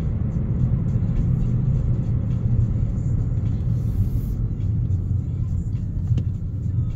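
Car being driven, a steady low rumble of engine and tyre noise on the road.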